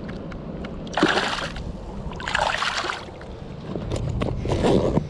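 Water splashing in two short bursts as a largemouth bass is let go by hand into shallow water. Near the end, a backpack zipper being pulled open.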